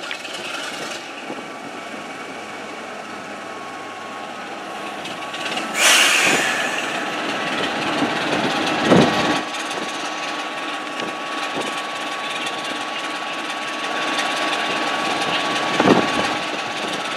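Diesel locomotive engine running as the locomotive rolls slowly into the station. There is a sudden loud rush of noise about six seconds in, after which a thin steady whine continues, and heavy thumps come twice, at about nine and sixteen seconds.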